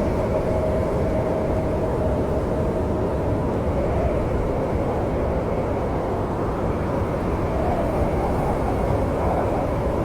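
Snowstorm wind blowing steadily: a low rumbling rush with a thin, wavering howl above it.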